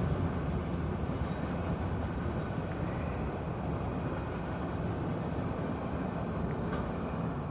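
Freight train cars rolling steadily past over a road crossing: a continuous low rumble of steel wheels on the rails.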